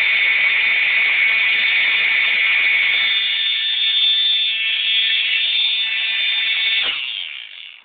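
Homemade mini siren with aluminum impellers sounding a loud, steady, high-pitched tone made of several pitches at once. About seven seconds in the tone drops away and dies out within about a second.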